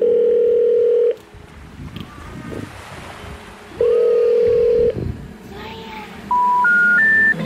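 Telephone signal tones laid over the soundtrack: a loud steady buzzing tone lasting about a second, repeated about four seconds in, then three short beeps stepping up in pitch near the end, like the 'number not in service' intercept tone. Fainter sliding tones sound in between.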